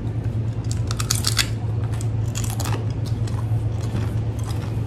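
Crisp crunching of a hollow, sugar-coated fried pastry snack being bitten and chewed, in two main bursts of crackles about a second apart, over a steady low hum.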